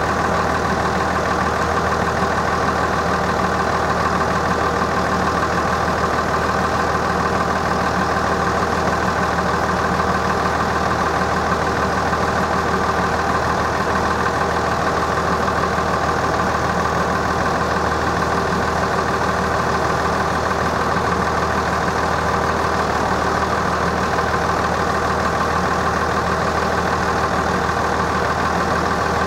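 Level crossing warning bell ringing steadily while the crossing is closed.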